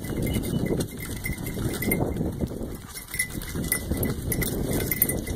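A pair of yoked plough bullocks walking close past, with the irregular shuffling and knocking of their movement and harness.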